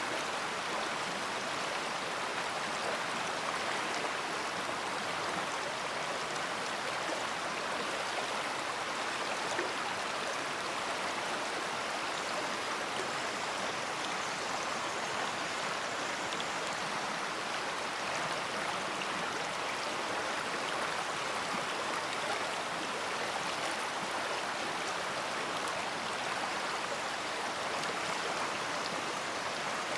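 A large river flowing: steady rushing and babbling water.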